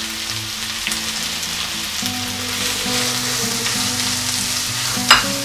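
Finely chopped onions sizzling in hot oil in a pan over mustard seeds and curry leaves, a steady frying hiss. There is a single sharp knock near the end.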